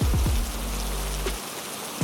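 Steady rain hiss mixed with a slow music bed of deep held bass notes, with a deep downward-sliding thump right at the start.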